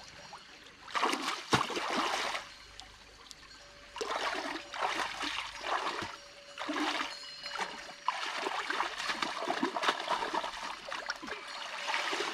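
Water splashing in a shallow stream as a woven basket scoop is pushed along the bank and lifted, water draining out through the weave; a series of splashing bursts.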